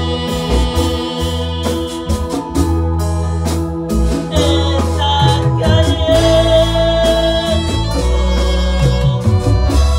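Church worship music: singing over a band with a heavy bass line and a steady drum beat.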